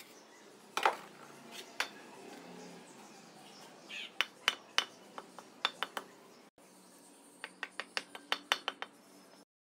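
A mason's steel trowel clinking as it works cement mortar on a brick, then a hammer tapping a freshly laid brick to bed it into the mortar: a run of light knocks about halfway through and a quicker run of about ten taps near the end.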